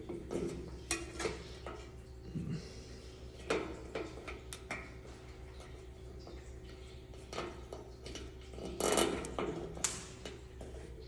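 A zip tie being pulled tight around a cord, with short ratchet clicks and scattered handling knocks, a louder cluster of them near the end.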